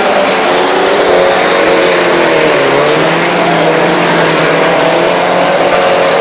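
Engines of several racing pickup trucks running hard together, loud and steady. Their pitch dips briefly and climbs again about halfway through.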